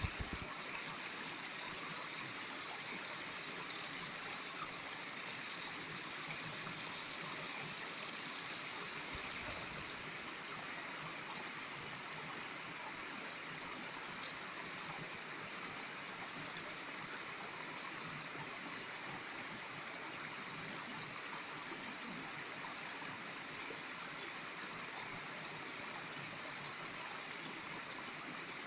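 Shallow stream running steadily over rock, with a single light tap near the middle.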